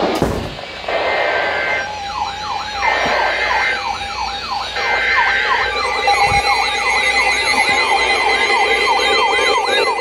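Electronic siren-style emergency alert sound for a tornado warning: a rising yelp that repeats a little over twice a second, starting about three seconds in, over a wavering high tone. Short buzzy alert-tone bursts come before it.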